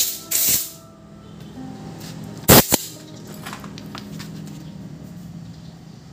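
Compressed-air blow gun: a short burst of hiss near the start, then two sharp, louder blasts about two and a half seconds in, blowing engine parts clean.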